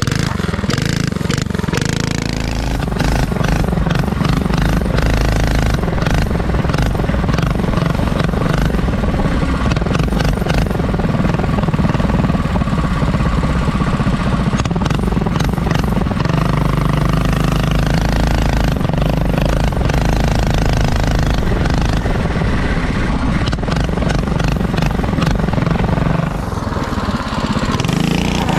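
Predator 212cc single-cylinder engine on a home-built mini bike running loud and rough, rising and falling in level, with a brief drop near the end.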